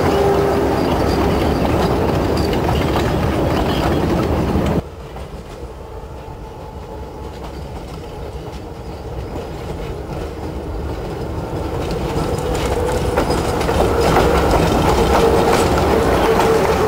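Narrow-gauge coal wagons rattling past close by, their wheels clicking over the rail joints. About five seconds in the sound drops suddenly to a quieter approaching train hauled by a small electric locomotive, which grows steadily louder as its wagons come past, with a thin wheel squeal near the end.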